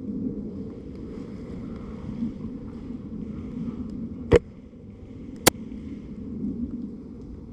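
Steady low rumble of wind and movement on the microphone, broken by two sharp snaps about a second apart, the second one crisper.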